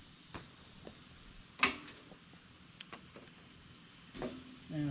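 Steady high-pitched chorus of insects trilling, with a single sharp knock about a second and a half in and a few lighter clicks, from someone climbing a ladder.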